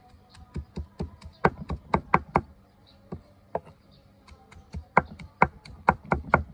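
Hammered-steel cleaver mincing lemongrass on a thick wooden chopping block: quick, even knocks of the blade striking the wood, about five a second. There are two runs of chopping, with a pause of about two seconds in the middle holding only a couple of single strikes.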